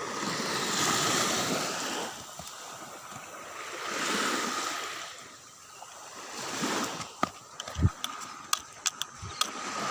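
Sea water washing in slow swells with splashes, then a quick run of sharp clicks and knocks about seven seconds in.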